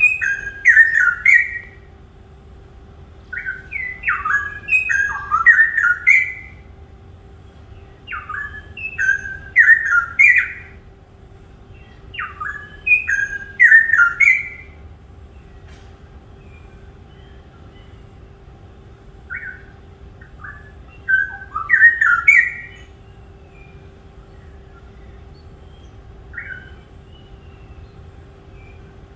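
A songbird singing bursts of quick, choppy chirping phrases about two seconds long, roughly every four seconds, then thinning to a few short single notes in the second half. A steady low hum runs underneath.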